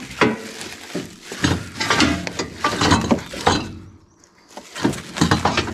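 A run of knocks, clanks and rattles as steel crate frame pieces and sawmill parts are handled and shifted on a wooden pallet, with a short lull about four seconds in before more knocks.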